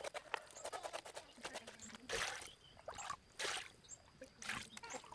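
Water splashing and trickling in short bursts, three louder splashes among many small clicks and knocks.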